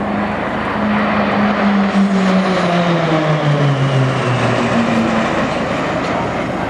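A formation of six Pilatus PC-9/A single-turboprop trainers flies past overhead. Its propeller drone falls steadily in pitch from about a second and a half in as the aircraft pass and draw away.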